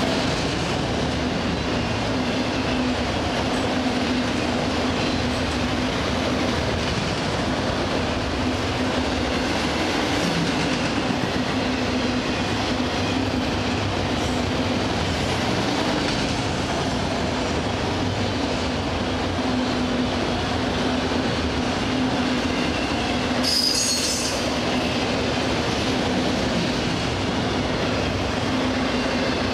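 Freight train of auto-rack cars rolling past, a steady rumble of wheels on rail with a constant low hum. About three-quarters of the way through there is a brief, high wheel squeal.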